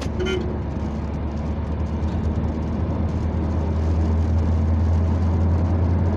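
Ford car's engine and tyres on a wet road, heard from inside the cabin while driving. The low engine drone grows louder about three seconds in as the car accelerates.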